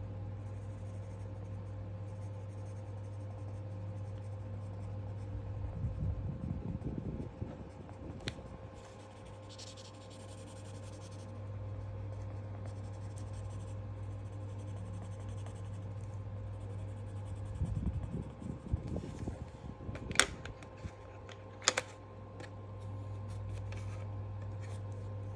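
Coloured pencil scratching across sketchbook paper in two spells of quick shading strokes, over a steady low hum. Two sharp clicks near the end.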